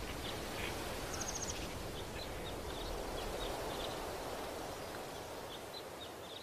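Open-country ambience: a steady outdoor hiss with scattered faint bird chirps throughout, and a short, rapid high trill about a second in.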